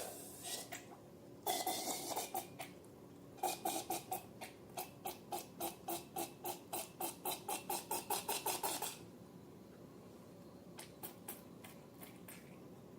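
Slime being squished and worked by hand, giving sharp sticky clicks and pops: a short cluster, then a steady run of about three a second that quickens slightly before stopping, then a few scattered clicks.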